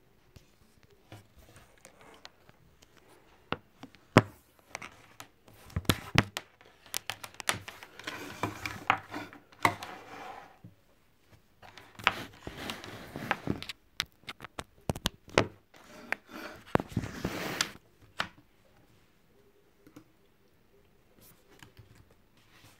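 Handling noise close to the microphone: a string of sharp clicks and knocks, with stretches of rustling in between, starting about four seconds in and stopping about eighteen seconds in.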